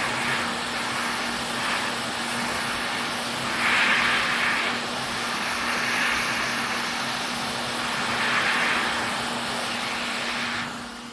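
Steady rush of air over a motor hum from an electronics rework tool, used to desolder a PS5's HDMI port. The rush swells a few times and stops near the end, while the hum carries on.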